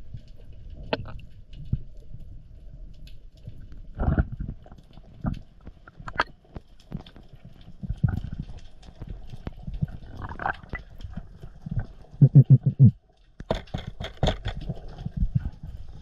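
Underwater sound around a swimming diver's camera: a low rumble of water moving past the housing with irregular clicks and knocks throughout, a quick run of about six heavy low thuds about twelve seconds in, then a burst of sharp clicks.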